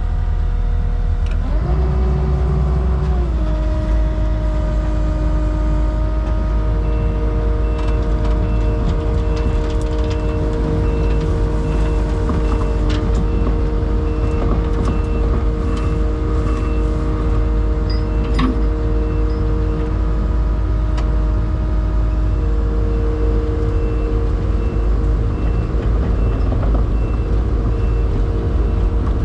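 Takeuchi TL12v2 tracked skid steer's diesel engine revving up about two seconds in and running steadily at high revs as it backs up dragging the stuck pickup out of the mud. Its backup alarm beeps repeatedly through most of the pull.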